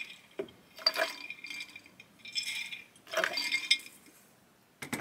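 Glass jars and containers clinking and rattling as they are handled and set down on a table, in about four short bursts; one is a glass jar of dried pepper pieces.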